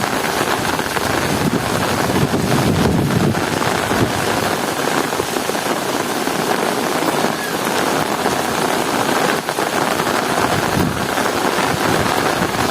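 Heavy rain falling steadily, with a low rumble swelling underneath a couple of times.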